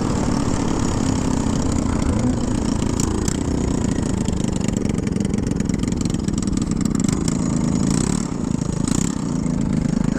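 Small engines of Honda Ruckus-based scooters running steadily while riding, heard from the rider's helmet, with a slight dip in level about eight seconds in.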